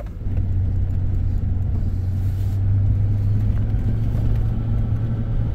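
Chevrolet vehicle driving on beach sand, heard from inside the cab: a steady low engine and road drone that settles in just after the start.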